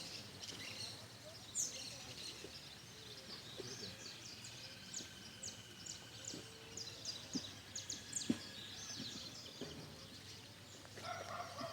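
Birds chirping around the pond, many short quick calls overlapping, with a couple of sharp taps, one early and one about two-thirds through.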